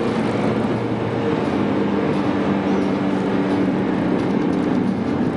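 Inside the cabin of a manual e92 BMW M3: its V8 engine running at speed under way, holding a fairly steady pitch, over tyre and road noise.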